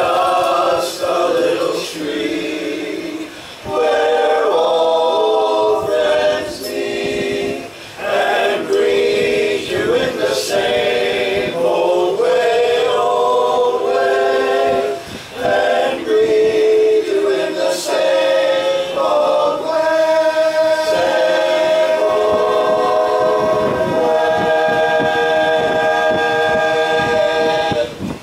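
Men's barbershop chorus singing a cappella in close four-part harmony. The voices move through changing chords, then settle on one long held final chord for roughly the last eight seconds before cutting off together.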